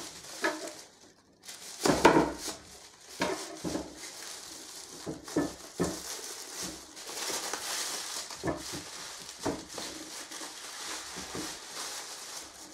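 Wrapping foil being pulled and crinkled off a newly unboxed sword, with irregular rustling and several short sharp knocks and crackles.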